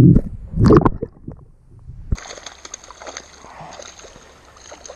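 Underwater camera sound of a hooked sooty grunter fighting on a lure: muffled low rushes of disturbed water, loudest right at the start and again just under a second in. About two seconds in the sound switches to above water: fainter splashing of the small fish at the surface over a steady hiss.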